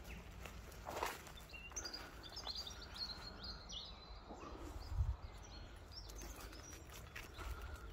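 Small birds chirping in a quick run of short, high calls for a couple of seconds, over a steady low outdoor rumble, with a few dull knocks, the loudest about five seconds in.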